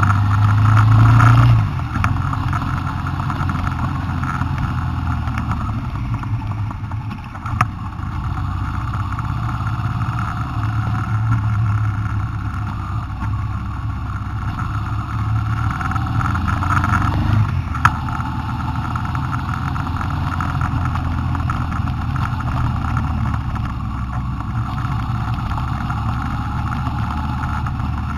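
Honda Transalp's V-twin engine running steadily under way, louder for the first second or so and then easing back. Two short sharp clicks come through, one about a quarter of the way in and one about two-thirds in.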